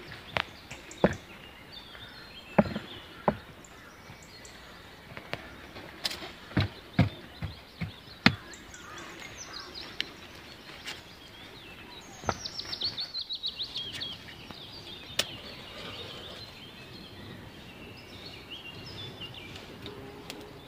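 Sharp knocks of stones and chunks of wood being set down and shifted against each other, scattered a second or more apart, with wild birds chirping. About twelve seconds in, a bird gives a fast trill that falls in pitch.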